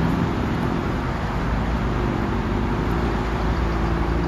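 Steady road traffic noise, a continuous low rumble, with a passing vehicle's engine hum coming up from about halfway through.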